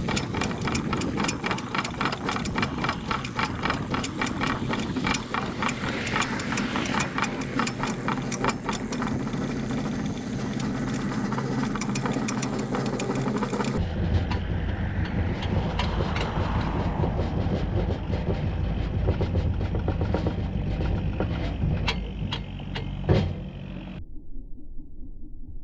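Mini excavator's diesel engine running steadily, heard from a distance, with a rapid clicking rattle over it for roughly the first half. After that the engine sound turns deeper with only a few clicks.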